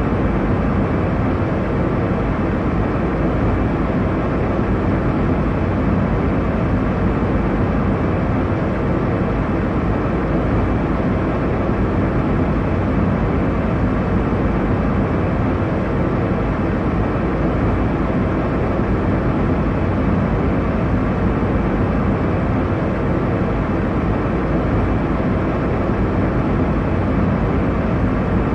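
Steady airliner cabin noise in flight: an even, unchanging rumble of engine and airflow, heaviest in the low end and dull at the top.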